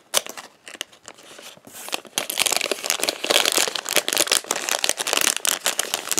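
Foil blind bag crinkling as it is cut open with scissors and pulled apart by hand; the crinkling grows louder and nearly continuous about two seconds in.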